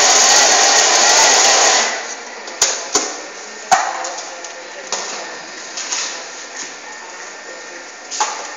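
Thermomix food processor's blade running at speed 7, mincing meat: a loud, dense whirring with a wavering whine that stops abruptly about two seconds in. Several sharp clicks and knocks follow as the machine is handled.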